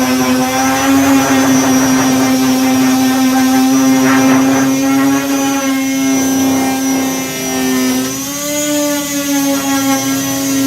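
Power sander fitted with 240-grit discs running steadily on body filler. Its motor hum sags briefly in pitch about three-quarters of the way through, as it is pressed harder, and then comes back up.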